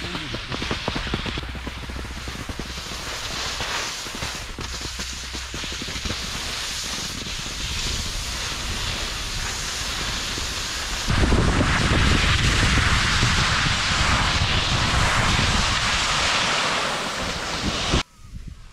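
Wind buffeting the camera microphone over a steady hiss of skis sliding on snow. The rumble grows much louder about eleven seconds in and cuts off abruptly near the end.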